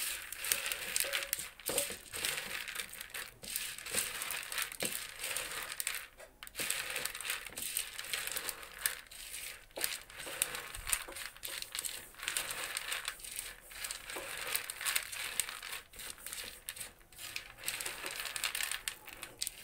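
Chickpeas being stirred and tossed by hand on a ceramic plate, rattling and scraping against the plate and each other in a continuous rustle of small clicks.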